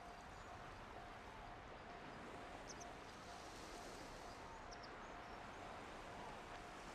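Faint outdoor ambience: a low steady hiss with a few brief high bird chirps, twice in short pairs.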